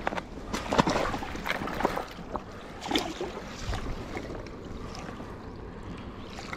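Water splashing and sloshing in the shallows around a landing net holding a large trout, in irregular splashes for the first few seconds, then quieter lapping.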